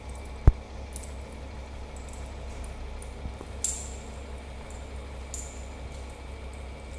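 Hydraulic compression testing machine running with a steady low hum as it loads a timber block along the grain. There is one sharp crack about half a second in, then a few fainter ticks, as the wood fibres begin to fail under the load.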